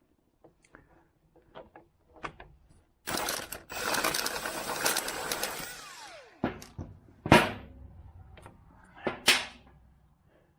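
A handheld power tool runs in one burst of about three seconds, its sound falling in pitch as it winds down. Light clicks come before it and several sharp metal clanks of tools and parts after it.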